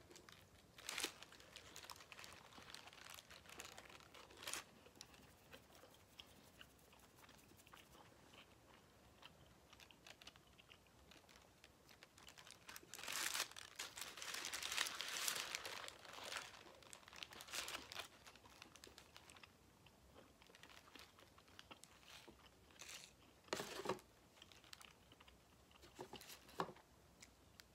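Burrito's paper wrapper crinkling as it is handled, loudest for a few seconds around the middle, with soft chewing and scattered rustles in between.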